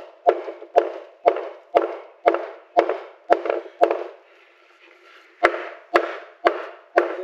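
Hammer striking a wooden block held against the end of a board, driving the board into place under the door sill. Sharp blows come about two a second, with a pause of just over a second around the middle before four more.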